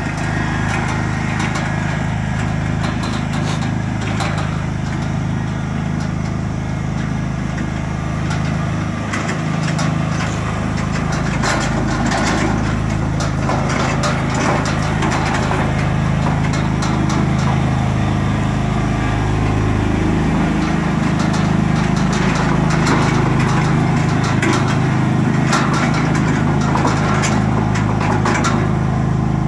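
John Deere riding lawn tractor engine running steadily while towing a cart. From about eleven seconds in, scattered clicks and cracks come in as the tractor and cart push through shrubs and tree branches.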